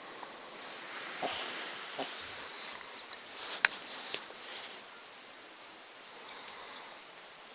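Shih Tzu snoring in its sleep: noisy breaths that swell and fade twice, with a sharp click about halfway through.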